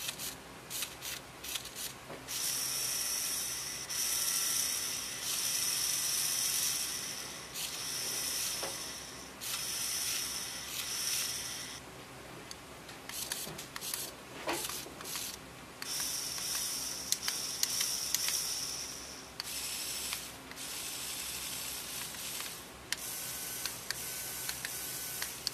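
Small LEGO Technic electric motors spinning their plastic gears, whirring in runs of one to a few seconds as they are switched on and off from a remote, some runs with a steady high whine. Short clicks fall between the runs.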